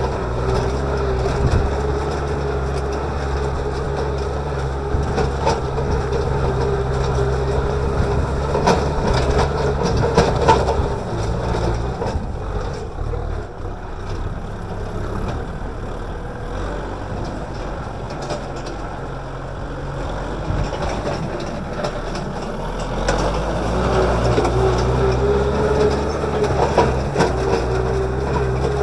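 Kubota M6040SU tractor's diesel engine running under load while it drags a disc plow through dry soil, with scattered crunching and clatter from the discs breaking up clods. The engine sound drops back for a stretch in the middle and comes up strong again about three-quarters of the way through.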